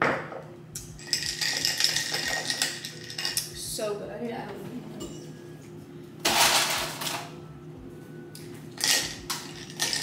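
Ice cubes clinking and rattling in a cup of iced coffee, in a few separate bouts.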